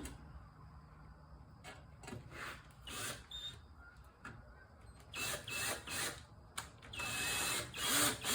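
Short spurts of a power drill-driver turning a screw, with faint clicks first and the spurts starting about five seconds in. The screw is not biting in the dipstick tube's mounting hole, which is suspected to be stripped.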